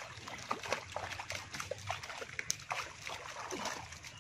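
Water splashing and sloshing in quick, irregular bursts.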